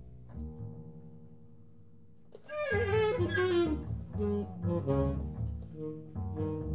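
Tenor saxophone and double bass playing together. A quiet held note over low bass notes for the first couple of seconds, then about two and a half seconds in the saxophone comes in loud and high and slides down in pitch. It goes on in short repeated phrases over the bass.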